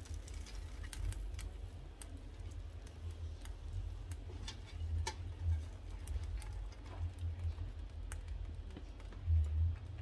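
Scattered light clicks and taps of kitchen handling over a steady low hum, with a louder low thump near the end.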